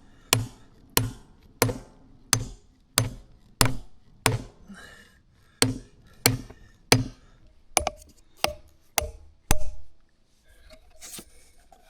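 Hammer striking wood: about fifteen sharp, evenly paced blows, roughly one and a half a second, with a short pause midway. The blows stop about nine and a half seconds in.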